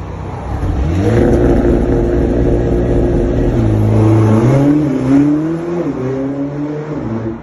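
Mercedes-AMG CLA 45 S coupe with an Akrapovic exhaust accelerating hard, its turbocharged 2.0-litre four-cylinder rising in revs about a second in. The pitch drops twice, near the middle and again later, as it shifts up, and the sound cuts off suddenly at the end.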